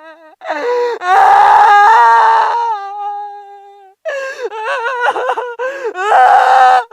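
Scary ringtone playing: a drawn-out, wavering voice-like cry with two loud, rough outbursts, the first about a second in and the second near the end.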